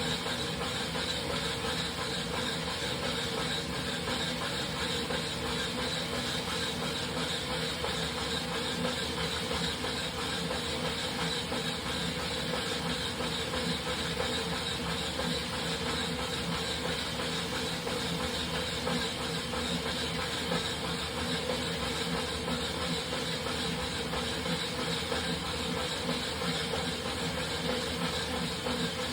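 Wahoo Kickr Rollr smart bike roller spinning steadily under a ridden bicycle, with a steady squeal over the rolling hiss; the owner says this squeal comes from the unit while it warms up.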